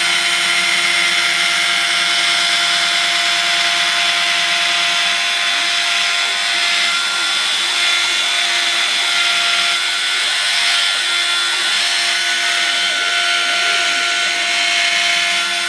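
Mini desktop CNC mill's spindle running with a steady whine while its cutter mills a plastic sheet, with the rasping noise of the cut. A low hum under it drops out about five seconds in.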